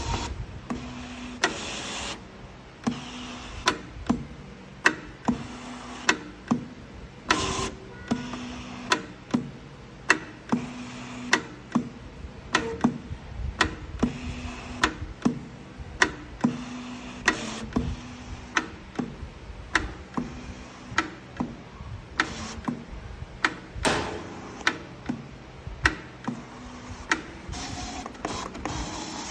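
SF-350MAX digital cutting and creasing machine working a sheet of 350 g ivory card: a run of sharp clicks about twice a second from the moving tool head, over short spells of motor hum.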